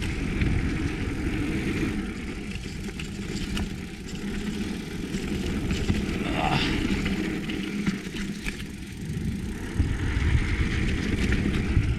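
Wind buffeting the action-camera microphone and knobby mountain-bike tyres rumbling over a dirt trail during a descent, a steady low noise that swells and eases with the terrain.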